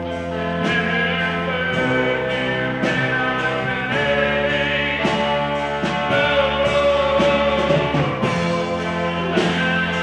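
Live rock band playing: electric guitars hold long sustained notes over bass and drums, with regular drum and cymbal hits.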